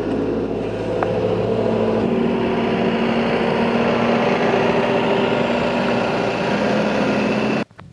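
Gradall telehandler's diesel engine running steadily close by, its note rising slightly about two seconds in, then cutting off suddenly near the end.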